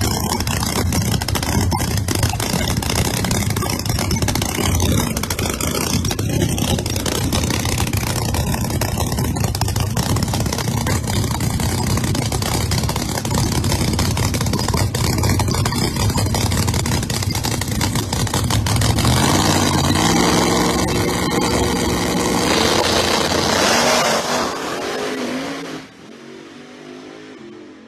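Pat Musi-powered drag-race Mustang running loud and rough as it stages. About 19 seconds in it launches, and the engine pitch climbs in steps through the gears as the car accelerates away. The sound falls off sharply a little before the end.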